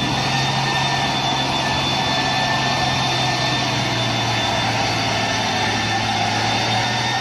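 Mitsubishi Fuso tanker truck's diesel engine running steadily as the truck crawls through deep mud, with no revving.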